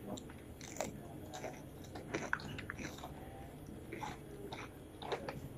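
Eating sounds of a person chewing and biting a meal of fried fish, rice and fresh cucumber. Scattered small clicks and crunches come from the chewing.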